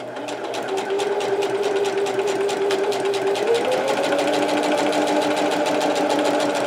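Singer Heavy Duty electric sewing machine stitching through paper. It speeds up over the first second, then runs steadily with a rapid, even stitch clatter over the motor's whine, which climbs in pitch a little past halfway as the machine goes faster.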